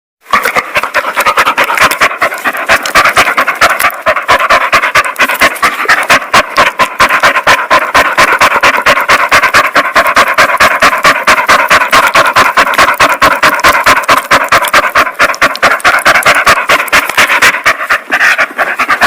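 Dog panting in a quick, even rhythm of several breaths a second.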